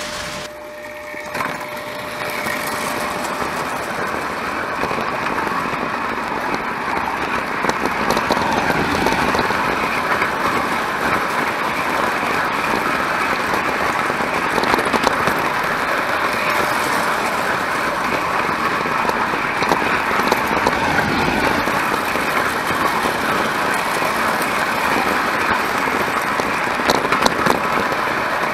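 Early prewar Lionel electric toy train running on tinplate track, heard up close: a steady rattling whir of the motor and wheels that grows louder over the first several seconds, with a few sharp clicks.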